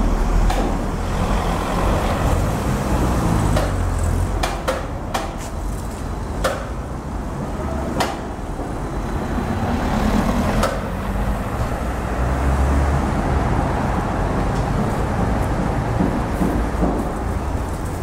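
Street construction site ambience: a steady rumble of engines and traffic, with scattered sharp knocks and bangs, several in quick succession between about four and six seconds in.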